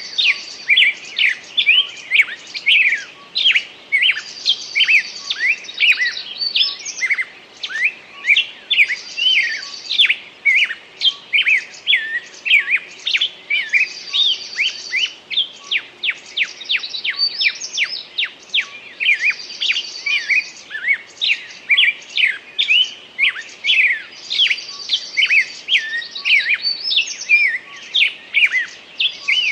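Several songbirds singing together in a forest chorus, with many quick overlapping chirps. One bird repeats a short high trilled phrase about every five seconds.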